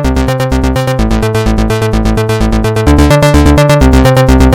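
Loud electronic music with a fast, steady beat and pulsing bass notes.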